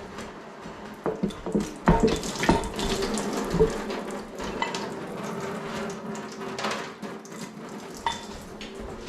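Irregular metal clunks and scraping as the cast-iron cylinder head of a Ford 460 big-block V8 is worked loose and lifted off the block. The clatter is heaviest about two seconds in, then settles to a few lighter knocks.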